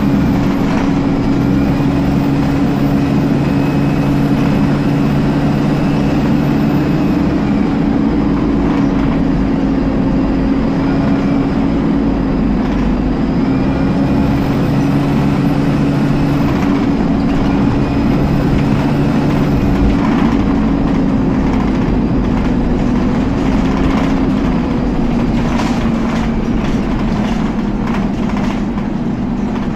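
Dennis Dart SLF bus heard from inside the saloon while under way, with the cooling fan giving a loud, steady whine throughout. A higher whine rises, holds and falls away three times as the bus pulls and eases off.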